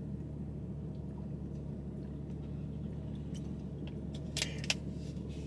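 Quiet drinking from a plastic water bottle over a steady low hum, with two short sharp clicks near the end.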